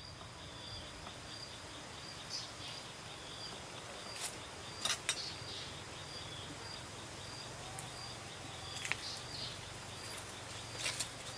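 Outdoor nature ambience: a steady high insect trill, with a few short bird chirps breaking in now and then.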